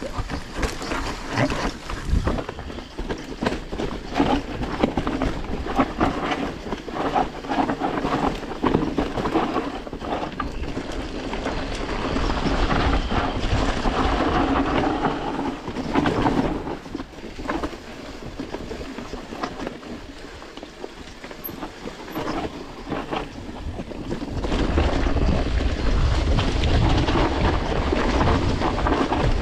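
Mountain bike rolling over a rough trail: tyres on stones and the frame and chain rattling with many small knocks, with wind on the microphone. The low wind rumble grows heavier near the end.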